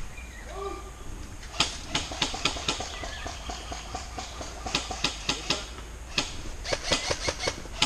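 Airsoft gunfire: irregular sharp clicks starting about one and a half seconds in, some in quick strings of three or four shots.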